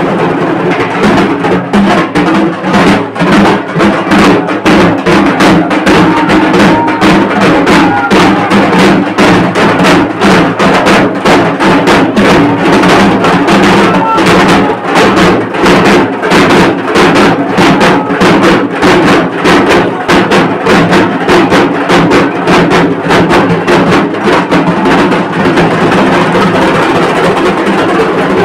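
Several dhak drums beaten together with sticks in a loud, fast, dense rhythm, the strokes building up about a second in.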